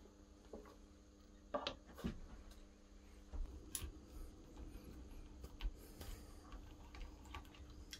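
Faint clinks and taps of metal hand tools and engine parts being handled at a Mazda MX-5 Miata engine block, with a couple of sharper knocks about one and a half and two seconds in.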